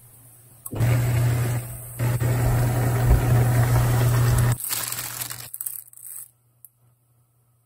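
Pot of water at a rolling boil on an induction hob: dense bubbling over a steady low hum, lasting about four seconds. Near the end comes a short rustle of a plastic bread bag.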